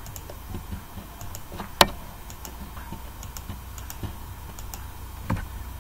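Computer mouse clicks, a scattered series of short clicks as faces are selected one by one, with a louder click about two seconds in and another near the end, over a low steady hum.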